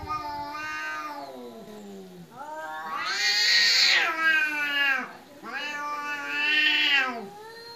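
Domestic cats caterwauling in a standoff: long, wavering yowls, three in a row with short breaks between them, the middle one the loudest, about three seconds in. This is the threat yowling that cats make before a fight.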